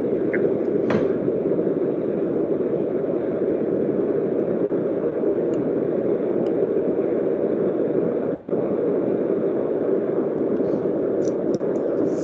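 Steady dull noise carried over a video-call audio feed, cutting out briefly about eight seconds in.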